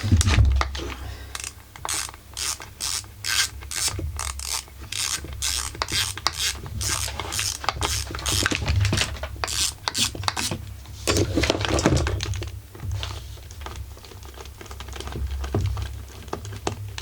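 Ratchet clicking in quick repeated strokes, about three clicks a second, as a screw on the chainsaw's crankcase is worked loose, with a short stretch of rough rubbing and scraping of the tool about two-thirds of the way through.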